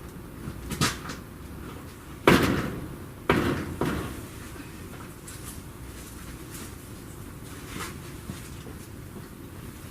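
A light knock, then two loud bangs about a second apart, each dying away briefly, with a smaller knock after them.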